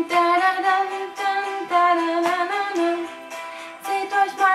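Music with a woman singing a melody in held notes.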